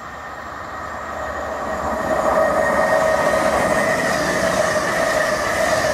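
Express passenger train running through the station at speed, growing louder as it approaches and then a steady rush as the coaches pass close by, with a steady high whine over it.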